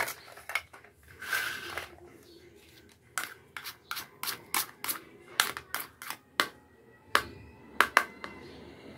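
Plastic toy fruit being shuffled and a plastic toy cutting board set down, then a plastic toy knife tapping on the board in a run of sharp, uneven clicks, the loudest two near the end.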